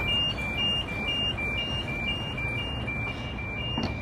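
Passenger train's door-closing warning as the doors shut: a two-tone beep alternating quickly between a lower and a higher pitch, about four beeps a second.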